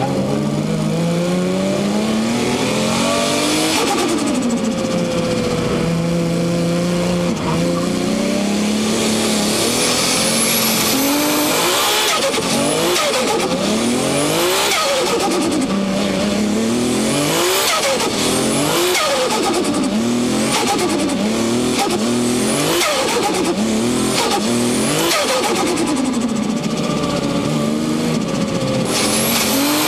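Turbocharged car engine revved hard again and again, its pitch rising and dropping every second or two, with a turbo whistle climbing on each rev and turbo flutter as the throttle closes. The first several seconds hold a steadier engine note before the repeated revving starts.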